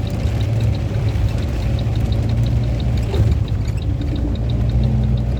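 Car engine running with a steady low hum under a dense rushing noise like pouring water, with a faint even ticking about four times a second.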